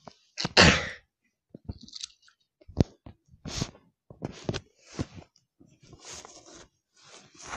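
Close handling noise of plastic toy cars and a toy garage set being moved about: a loud rustle about half a second in, then scattered short clicks, knocks and rustles.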